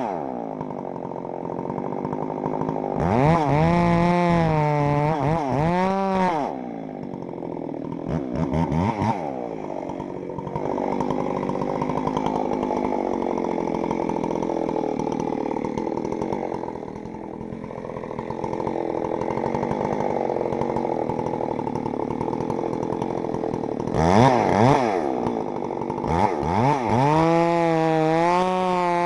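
Two-stroke chainsaw being revved up and down several times, with a longer stretch of steadier running in the middle, as a tree is cut.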